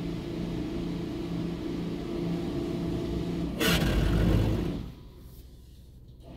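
Automatic soft-touch car wash machinery heard from inside a stopped car: a steady mechanical hum with a pulsing low tone. About three and a half seconds in, a loud rushing noise lasts roughly a second, then the noise drops off sharply to a much quieter hum.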